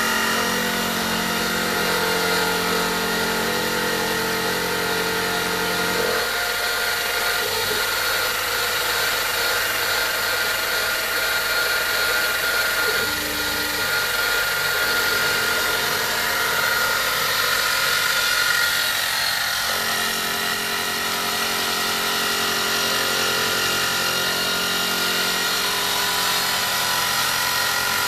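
CNC-converted mini milling machine running, with a steady high whine. Lower tones beneath it switch pitch abruptly several times.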